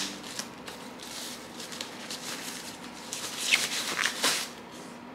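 Plastic wrapping sleeve crinkling and rustling as it is pulled off a small speaker by hand, in irregular bursts that are loudest between about three and four and a half seconds in.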